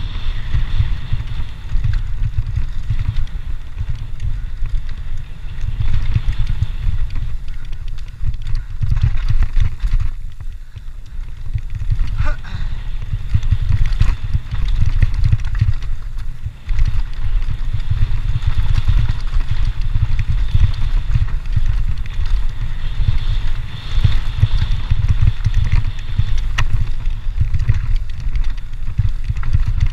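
Cross-country mountain bike riding fast down a dirt singletrack, heard from a camera mounted on the rider. Wind buffets the microphone heavily, the tyres rumble over the dirt, and the bike gives scattered clicks and knocks over bumps.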